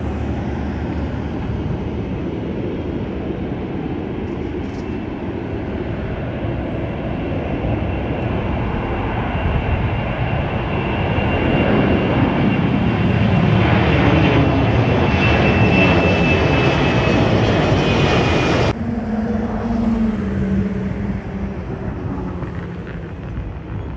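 Airliner engines roaring as an aircraft passes close, growing louder toward the middle, with a high turbine whine that slowly falls in pitch. The sound cuts off abruptly near the end and gives way to a quieter, more distant aircraft drone with a low hum.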